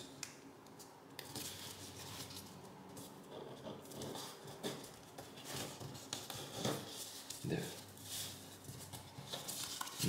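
Sheet of origami paper rustling and crinkling in the hands as its flaps are folded and creased, in faint, irregular soft scrapes and clicks.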